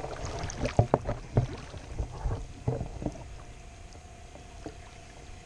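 Pond water splashing and sloshing around a landing net as a large fish is worked into it, with irregular splashes and knocks over the first three seconds, then quieter.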